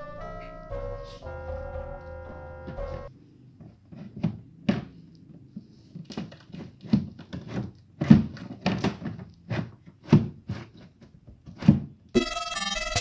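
Background music for about three seconds, then a run of irregular thuds and knocks, some sharp, spaced unevenly for about nine seconds, before the music returns near the end.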